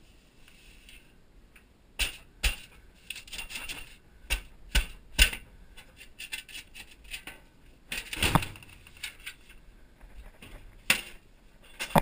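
Sheet-metal smoke pipe of an oil furnace being worked apart by hand: a string of sharp metallic knocks and rattles, with a longer scraping clatter about eight seconds in and another sharp knock near the end.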